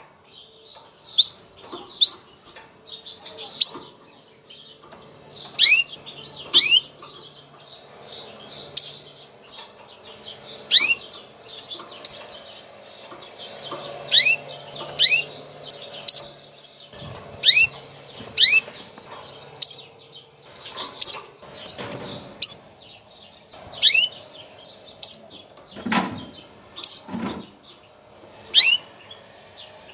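Female canary giving its mating call: short, sharp chirps that fall in pitch, often in pairs, repeated about once a second. The call is a sign of a hen ready to breed.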